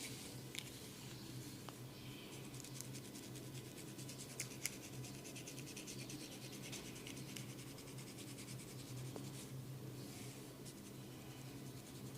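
Hair and scalp being scratched in quick, dense, crisp strokes, with two sharper clicks a little before halfway through, over a steady low hum.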